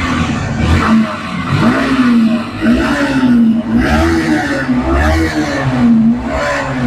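Yamaha R15 V3's 155 cc single-cylinder engine being revved repeatedly with throttle blips, the revs rising and falling about once a second. It keeps running without stalling, the sign that the throttle body, clogged with black gunk that spoiled the air-fuel mixture, has been cleaned.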